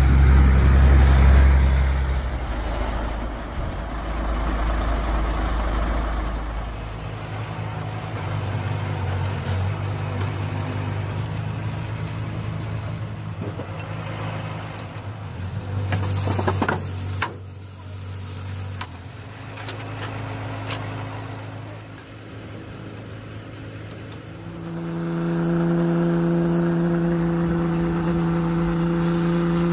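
Heavy truck engines running, with steady engine tones throughout and a short burst of noise about 16 seconds in. From about 25 seconds in, a louder steady drone is heard from inside the cab of the truck being towed.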